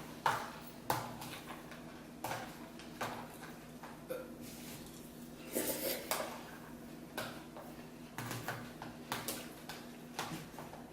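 Spoons clinking against cereal bowls in a string of short, irregular taps.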